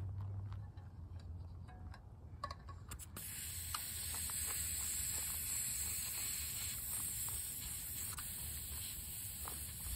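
Air hissing steadily out of a fat bike tyre's valve as the tyre is let down. The hiss starts suddenly about three seconds in, after a few faint clicks.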